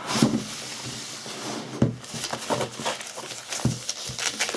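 Rustling and crinkling of a laptop's white protective wrapping as the wrapped laptop is slid out of its cardboard box and handled, with a few short knocks as it bumps the box and desk.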